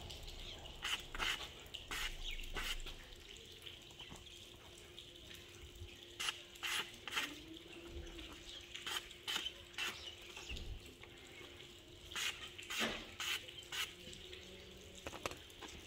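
Uzbek pichoq knife blade slicing through a hand-held paper flyer: a series of short, crisp cuts coming in quick runs of two to four, a sharpness test of the edge.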